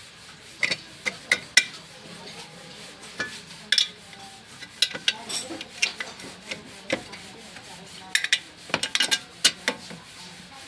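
Metal tools and car parts clinking, knocking and scraping during hand repair work: irregular sharp clicks in clusters, busiest about a second in, around five seconds and again from about eight to ten seconds in.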